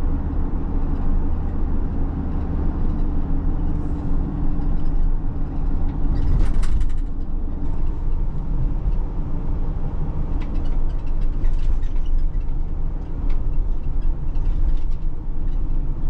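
Inside a van's cabin while it is driving, there is a steady low drone of engine and road noise, with scattered short clicks and rattles.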